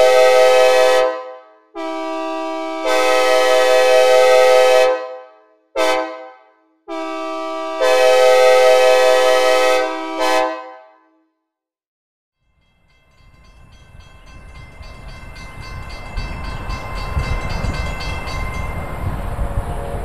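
Synthesized Nathan K5LA five-chime train horn in the "square tag" GE Genesis P42DC arrangement, blowing the grade-crossing signal: the end of a long blast, then long, short, long, each with a reverb tail. The second and last long blasts come in softer and step up after about a second. After a short silence a low train rumble rises steadily, with the horn chord faint inside it, as a train approaches.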